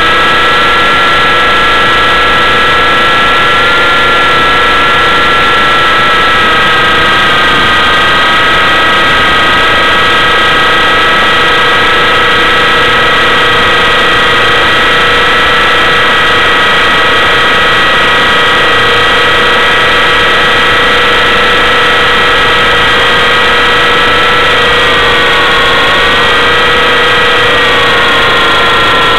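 Align T-Rex 600 RC helicopter's drivetrain and rotor heard from a camera mounted on board: a loud, steady whine in several tones over a rushing noise. The pitch dips briefly about 25 seconds in and again near the end as the helicopter manoeuvres.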